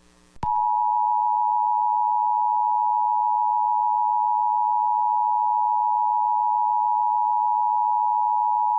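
Emergency Alert System two-tone attention signal, the 853 Hz and 960 Hz tones sounding together as one steady loud tone for about eight seconds. It starts about half a second in and cuts off abruptly near the end. It is the warning tone that announces an incoming emergency alert message.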